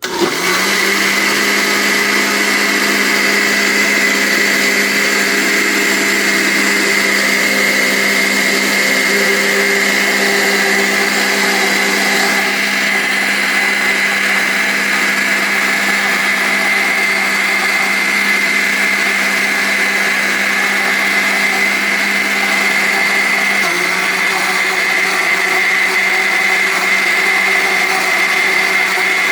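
Cadence Evolution 800 W blender switched on and running steadily, blending pizza batter, with a steady hum and a high whine. The motor pitch drops slightly about 24 seconds in.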